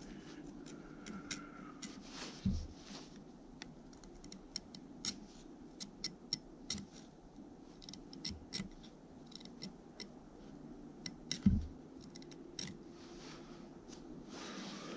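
A hand file scraping along the steel bit of an old Welland Vale True Temper fire axe in short, light strokes: faint scrapes and clicks. Two dull thumps stand out, about two and a half seconds in and again near eleven and a half seconds.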